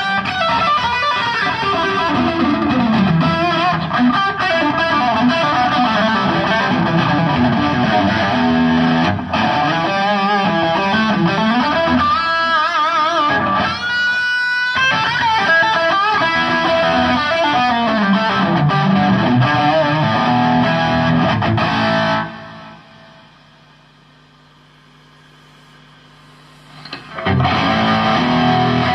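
Rock band playing a song, led by a distorted electric guitar run through effects units. About three-quarters of the way through, the band drops out and only a faint held note rings for about five seconds before the full band comes back in.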